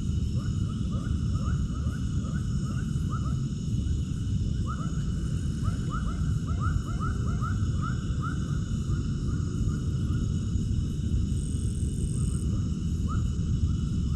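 Animal calls: runs of short, quick upward chirps, several a second, over a steady low rumble, with steady high-pitched tones throughout.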